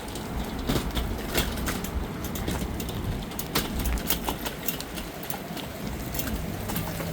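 City street ambience: a steady low traffic rumble with many short, sharp clicks and knocks scattered through it.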